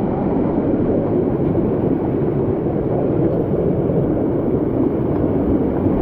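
Rushing water of a mountain canyon torrent, a loud steady low rush with no breaks.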